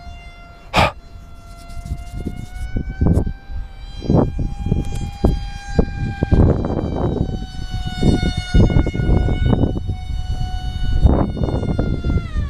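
FPV racing quadcopter's brushless motors and props whining at a high, nearly steady pitch that drifts slightly up and down as the throttle changes, with irregular low rumbling gusts underneath.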